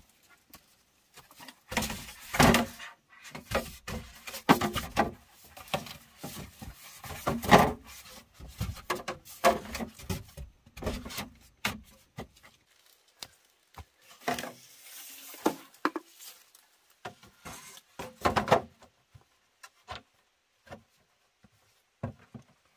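Wood being handled and worked by hand: irregular wooden knocks, clatters and scraping, busiest through the first part and thinning out near the end.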